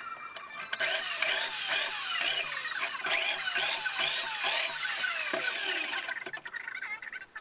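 Handheld electric drill boring holes in a board, its motor speeding up and slowing down over and over, about twice a second. It starts about a second in and stops about six seconds in, over background music.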